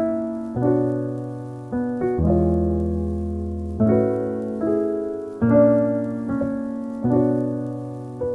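Lo-fi background music of soft piano chords, each struck and left to fade, a new chord about every second and a half.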